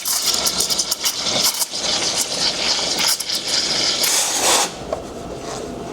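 Espresso machine hissing loudly and unevenly with crackling, scraping clicks, cutting off sharply about four and a half seconds in.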